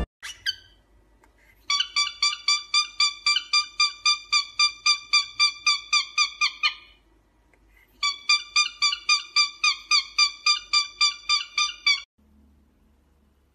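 Cockatiel calling in a rapid series of short, high chirps, about four or five a second, in two runs of several seconds with a pause between. The second run cuts off suddenly.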